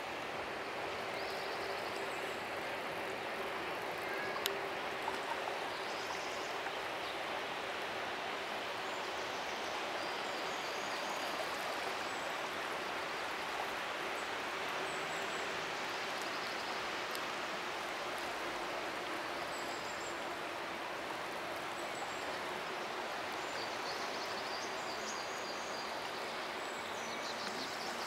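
Fast-flowing river water rushing steadily as one continuous, even wash.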